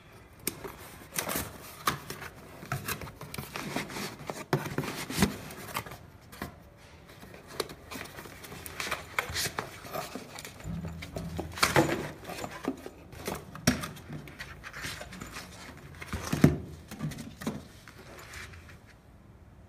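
Unboxing by hand: cardboard box flaps rustling and scraping, foam packing inserts rubbing, and the charger and its cable handled and set down on a table. The noises come as an irregular run of rustles, scrapes and clicks that die down near the end.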